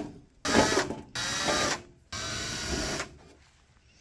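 Cordless power driver running in three short bursts, each under a second, starting and stopping abruptly, as screws are backed out of the ultrasonic cleaner's casing.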